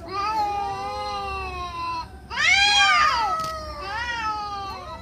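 Two domestic cats yowling at each other in a face-off, the drawn-out threat calls of a cat standoff. There are long, wavering calls, with the loudest rising and falling about two and a half seconds in, and calls overlapping after it.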